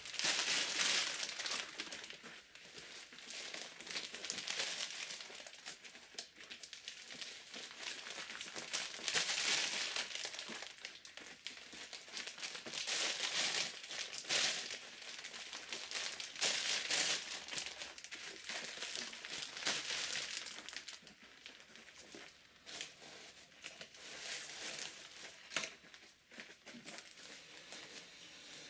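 Woven polypropylene sacks rustling and crinkling as they are handled and set down, in irregular bursts of varying loudness.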